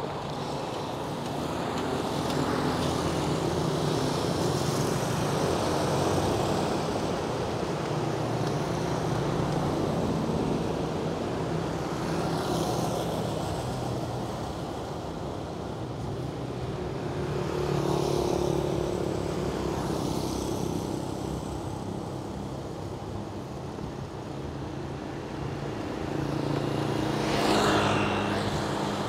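Road traffic: motor vehicle engines running, with several vehicles passing as swells of noise, the loudest near the end.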